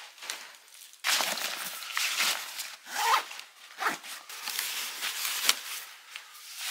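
A nylon duffel bag being handled: a zipper and rustling fabric in irregular strokes as clothes are stuffed into it, starting sharply about a second in.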